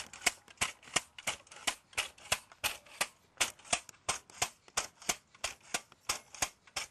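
Quick, unevenly spaced sharp strikes, about three to four a second, as erosion-control blanket staples are driven into hard ground by a stapling tool and by hand.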